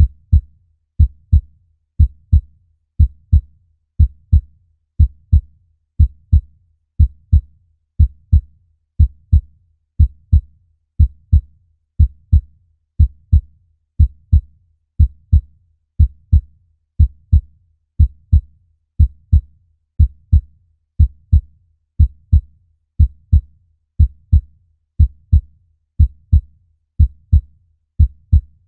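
Human heartbeat: a steady, regular lub-dub, two low thumps per beat, at about one beat a second.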